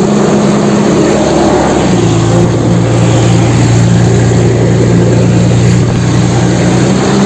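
A steady, loud engine-like drone that settles into a deeper, stronger hum about two seconds in, going with a toy tracked excavator driving over dirt.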